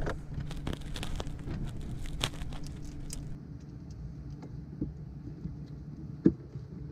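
Hand screwdriver turning Phillips-head screws into half-inch plywood: scattered small clicks and scrapes, busier in the first few seconds, over a steady low hum.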